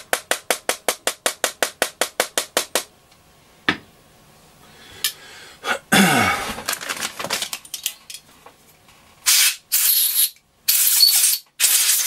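Rapid, even tapping clicks, about six a second, for the first three seconds as drilling debris is knocked out of the radio's works. About nine seconds in, an aerosol can gives several short hissing sprays.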